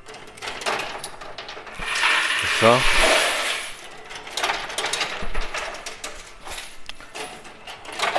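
Coin pusher arcade machine running: coins clinking and dropping with mechanical clicking. About two seconds in there is a louder rush of clatter lasting under two seconds, with a short falling tone inside it.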